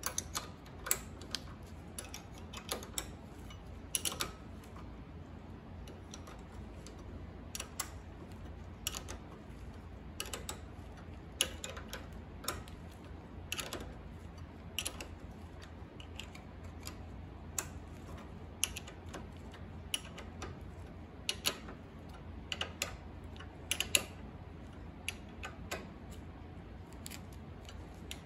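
Socket ratchet clicking in short, irregular runs as a bolt is driven into a nylon-insert lock nut, over a steady low hum.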